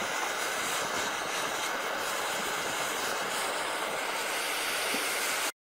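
Butane blowtorch flame hissing steadily as it heats the surface of a cast lead patch, cutting off suddenly near the end.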